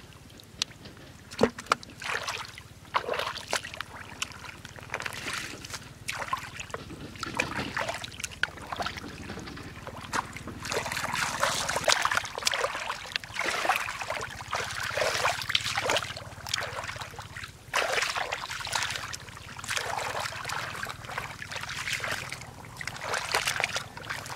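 Hands and bare feet splashing and squelching in shallow muddy water, irregular sloshes and splashes throughout, the sharpest about a second and a half in.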